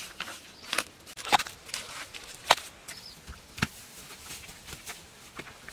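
Digging into dry, hard-packed earth: irregular sharp knocks and scrapes, a few seconds apart, with the rustle of dry grass and soil.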